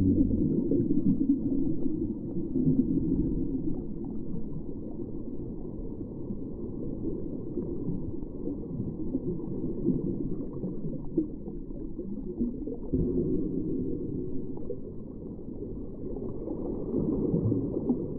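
Low, muffled rumble and gurgle of ocean water, steady throughout, with faint crackling and no clear animal calls.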